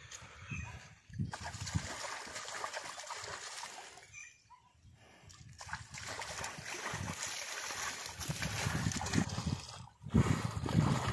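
Pond water splashing and sloshing as a bullock standing in it is washed by hand, water scooped and rubbed over its back. The splashing comes in irregular strokes and goes briefly quieter about four seconds in.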